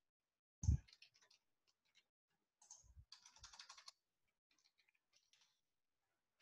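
Computer keyboard keystrokes, faint: a single thump under a second in, then a quick run of key clicks around three seconds in.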